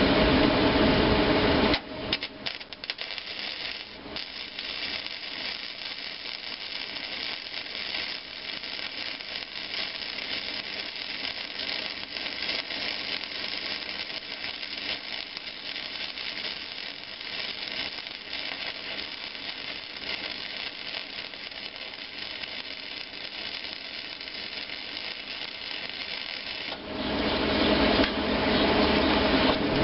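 Flux-core wire-feed (MIG) welder arc crackling and sputtering steadily for about 25 seconds while a bead is laid onto a gib key so it can be pulled out of a flywheel hub. Before the arc starts, about two seconds in, and again after it stops near the end, a louder steady low running noise is heard.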